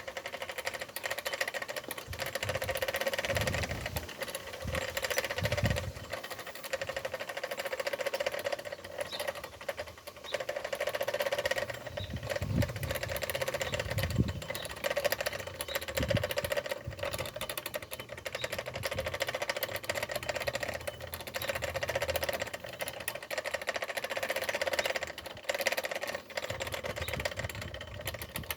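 A small electric power tool's motor running steadily, with a constant hum and a fine buzzing texture, and a few low thumps in the first half.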